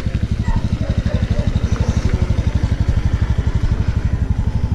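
Small motorcycle engine idling close by: a steady, rapid low putter that holds even throughout.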